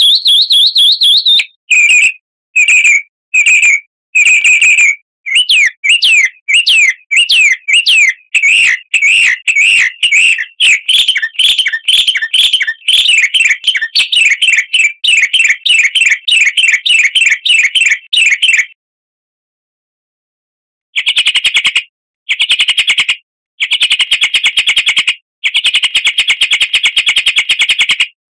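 Recorded songbird song used as a training lure: repeated high chirping phrases that run into long, rapid trills. After a silent gap of about two seconds comes a second stretch of dense, buzzy trilling in blocks.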